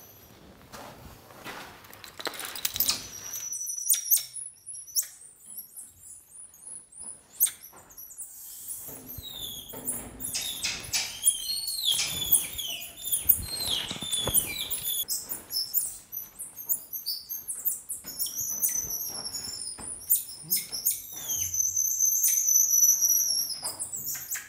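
Emperor tamarins calling: many quick, high-pitched chirps and twitters, and a few long, thin whistles, the loudest one near the end.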